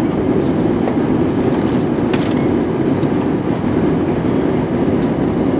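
Steady cabin noise inside an Airbus A320 during its descent: engine and airflow noise heard as a continuous low rumble.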